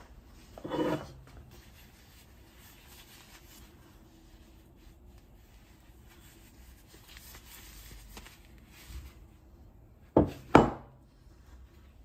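Cast aluminium pieces handled on a wooden bench and a digital scale: faint rubbing and shuffling, a brief louder scrape about a second in, and two sharp knocks about half a second apart near the end as the metal is set down.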